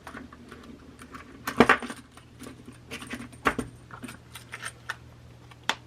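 Small metal letter pieces clinking and clattering as they are picked up and put away, with three sharper clinks about one and a half, three and a half and near six seconds in.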